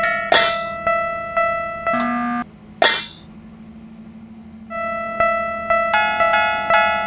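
Railroad crossing warning bells ringing, a steady repeated ding about twice a second, cut through by a few whooshes; they pause for about two seconds just before the middle, then start again, with a second bell of a different pitch joining near the end.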